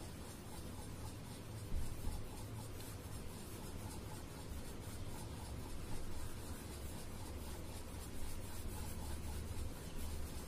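Oil pastel scribbling on paper, a steady scratchy rubbing made of quick back-and-forth strokes as a circle is coloured in.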